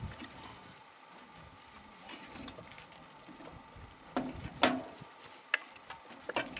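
Metal tools and engine parts clinking and knocking during work on the motorized bicycle's engine mount. There are several separate sharp knocks, the loudest about four and a half seconds in, with quiet handling noise between them.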